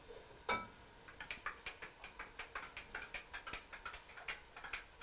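Spoon stirring coconut milk powder into warm water in a cup, clicking against the cup in a rapid, even rhythm of about five or six clicks a second. A single louder knock comes about half a second in.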